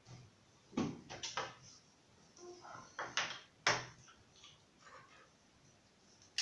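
Small clicks and knocks from the parts of a Lenovo G505 laptop being handled during a hard-drive swap: several sharp taps, with a brief scraping sound between them about two and a half seconds in.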